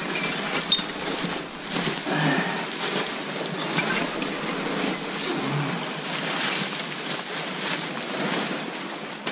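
Plastic bags and bubble wrap crinkling and rustling as a gloved hand rummages and shifts them, a steady crackly rustle with small sharp crackles throughout.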